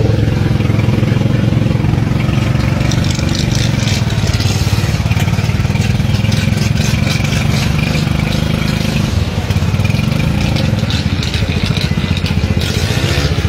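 A motor vehicle's engine running steadily close by, with a crackling hiss of splashing water over it from about three seconds in.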